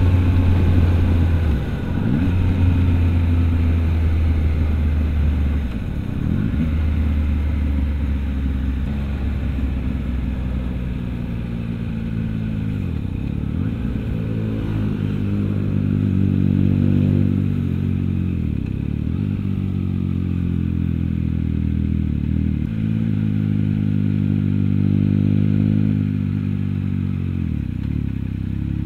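Triumph Trident 660's three-cylinder engine running through an aftermarket Orion exhaust at road speed. Its note climbs and falls in pitch, with several brief dips.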